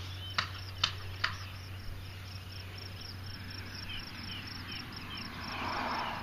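Insects trilling in a high, fast, evenly pulsing chorus, with three sharp clicks in the first second and a half.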